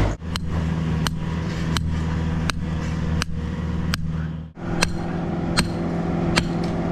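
Hand sledgehammer driving a steel string-line stake into a compacted gravel base: sharp metal-on-metal strikes about once every 0.7 seconds, with a short break about four and a half seconds in. A steady engine hum runs underneath.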